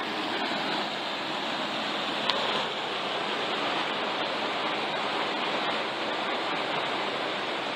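Steady rush of flowing water, with one short sharp click about two seconds in.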